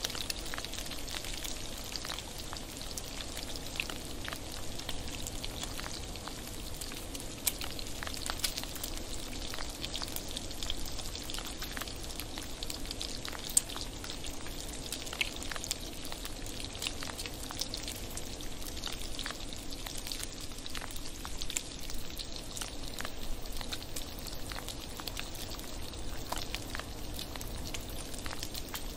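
Bacon sizzling in a frying pan: a steady hiss with many small sharp pops and crackles scattered through it.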